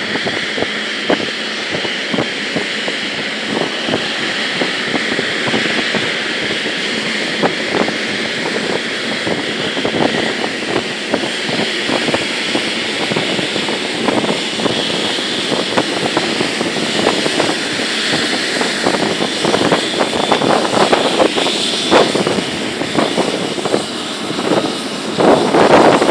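Boeing 777-300ER's GE90-115B turbofan engines at taxi power: a steady jet rush with a high fan whine, growing a little louder as the aircraft rolls closer. Wind buffets the microphone near the end.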